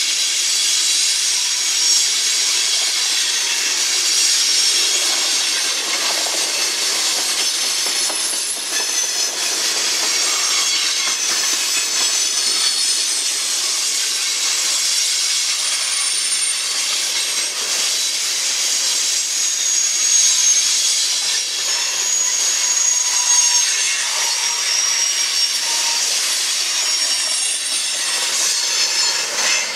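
Freight train tank cars rolling past close by: a steady rush of wheels on rail, with thin high-pitched squeals coming and going.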